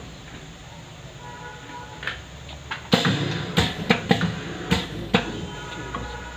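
A black plastic part being fitted into the fixture of a pad printing machine: a run of sharp hard clicks and knocks starting about two seconds in and stopping a little after the five-second mark.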